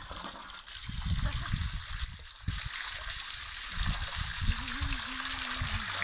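A thin jet of water from a hose spraying and pattering down onto a swimming pool, with splashing in the water; the hiss of the spray gets suddenly louder about two and a half seconds in.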